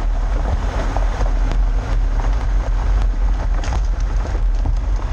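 Vehicle driving slowly along a rough dirt track, picked up by a camera mounted on it: a steady low rumble from the vehicle and wind on the microphone, with scattered small knocks and rattles as it goes over bumps.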